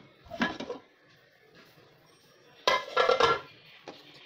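Metal pressure cooker being opened: a click and a short metallic scrape, then a louder clatter of the metal lid with a brief ring about three seconds in.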